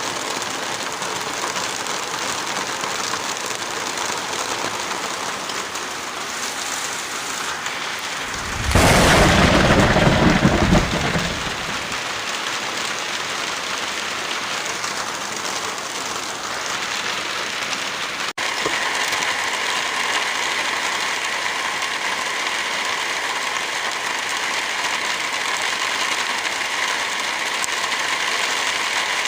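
Heavy rain falling steadily, with a loud thunderclap about nine seconds in that lasts a couple of seconds. At about eighteen seconds the rain sound changes abruptly to a slightly louder texture with a faint steady hum underneath.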